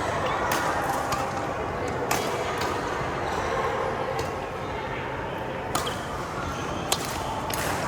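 Badminton rackets striking a shuttlecock in a rally: sharp, crisp hits roughly once a second, irregularly spaced, over a steady background hum of the hall.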